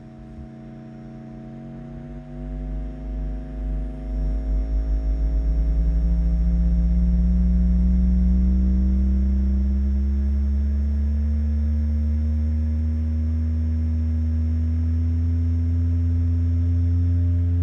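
Bass test tones for a speaker test: a deep steady tone under a slowly rising tone, swelling in loudness with a pulsing wobble over the first few seconds, then holding steady.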